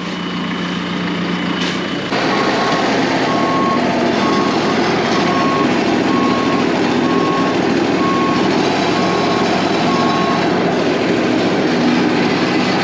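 Heavy equipment engine running, which throttles up sharply about two seconds in, while its backup alarm beeps steadily about once a second as the machine reverses; the beeping stops near the end.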